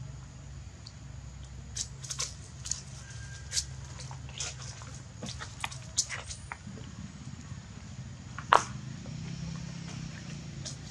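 Young macaques at play, with a scattering of short, sharp squeaks and clicks, the loudest about eight and a half seconds in, over a steady low hum.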